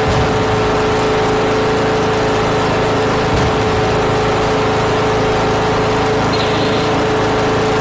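Riding lawn tractor engine running steadily as the tractor drives, a loud constant drone with a steady hum in it.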